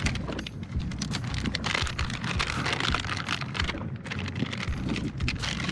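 Irregular small clicks and rattles of fishing tackle being handled while a jig head is re-rigged onto a soft-plastic lure, with wind rumbling on the microphone.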